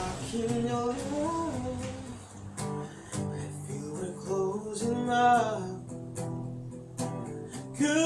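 Man singing a slow ballad to his own acoustic guitar, strummed and picked under the voice; the singing comes in phrases with short gaps between them.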